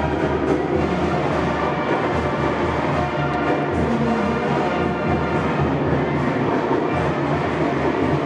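Brass band music playing steadily, horns over drums.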